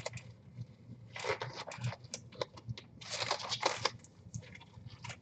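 A disposable glove being pulled on and adjusted: bursts of rubbery rustling and crinkling with small snaps, about a second in and again about three seconds in.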